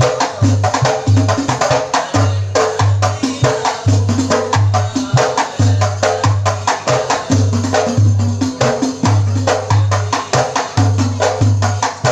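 Hadroh percussion ensemble playing an instrumental passage: hand drums struck in a fast, dense interlocking rhythm over a regular deep bass-drum beat, with no singing.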